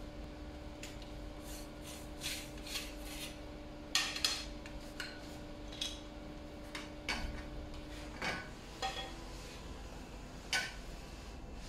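Poles and tripod base of a backdrop T-stand being handled and pulled apart: scattered knocks, clicks and rubbing of the tubes against each other and the backdrop sheet, the sharpest knock about four seconds in and another near the end.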